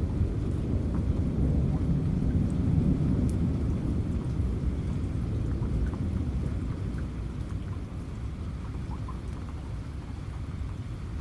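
Steady rain with a low rolling rumble of thunder that is strongest in the first few seconds and slowly fades. Scattered raindrop ticks sound over it.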